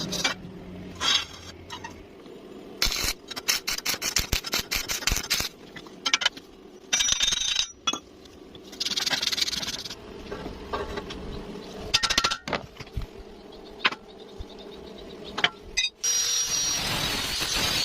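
Metal tools clinking and tapping on metal in quick irregular strikes and rattles. About sixteen seconds in, a power tool starts and runs steadily with a high whine.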